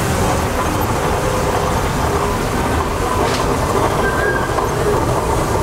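Steam traction engines driving past, a steady mechanical rumble from their engines and running gear.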